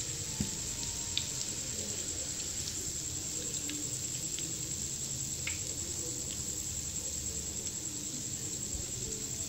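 Egg-coated chicken drumsticks sizzling steadily in hot oil in a frying pan, with the burner already switched off. A few faint clicks come from a fork touching the pan as the pieces are lifted out.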